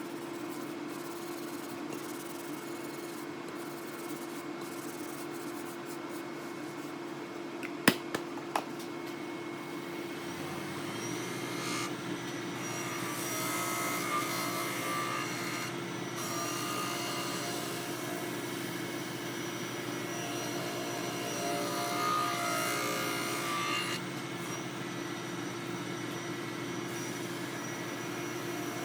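A woodworking machine running with a steady hum while wood is rubbed and worked against it. There are a few sharp clicks about eight seconds in, and the rubbing gets busier and louder from about twelve seconds on.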